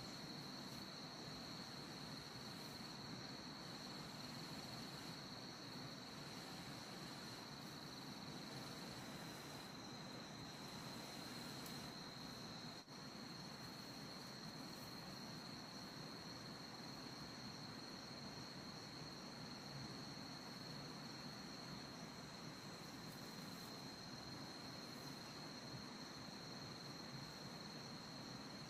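Steady high-pitched insect chirring, a cricket-like trill holding one pitch without a break, over a faint even hiss.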